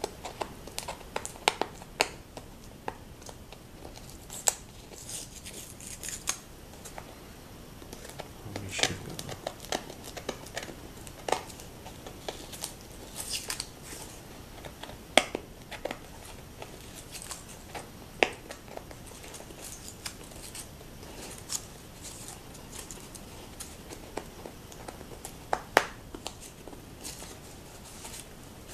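Fingernails picking and scratching at paper security-seal stickers on a cardboard box, peeling and tearing them off in short rasps, with scattered sharp clicks and taps against the cardboard.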